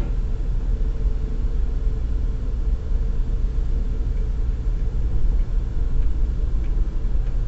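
Steady low engine and road rumble of a moving vehicle, heard from inside its cabin, with a faint steady hum over it.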